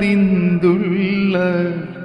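A man singing a slow, drawn-out line of a Malayalam Islamic devotional song (Mappila song) over a steady low drone, the held notes wavering in pitch. The voice fades away near the end.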